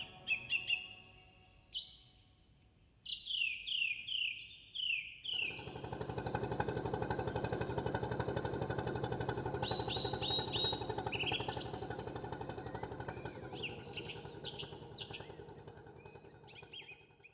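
Small birds singing repeatedly in short chirps and falling trills. About five seconds in, a steady low pulsing drone starts up suddenly and fades out gradually toward the end.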